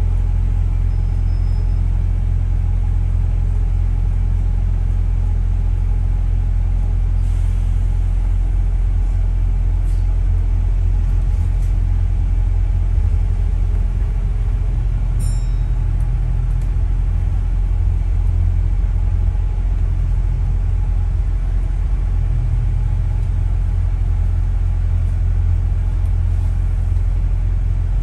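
Steady low rumble of a double-decker bus in motion, heard from inside on the upper deck: engine and road noise, with the engine note shifting slightly a couple of times. A brief faint click about halfway through.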